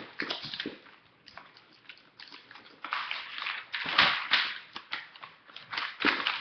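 Paper rustling and crinkling in irregular bursts as it is handled and attached, loudest about four seconds in.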